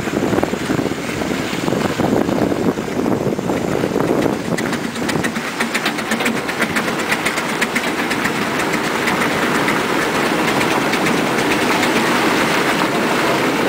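Steam road locomotive running along the road, a steady loud mechanical clatter from its engine and running gear, with a fast, even ticking for a few seconds in the middle.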